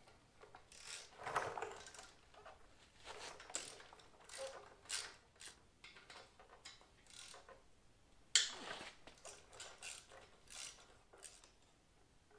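Hand ratchet clicking, with scattered metallic clinks and scrapes, as Allen bolts are backed out of a motorcycle's upper motor mount. A sharper metal clack comes about eight seconds in.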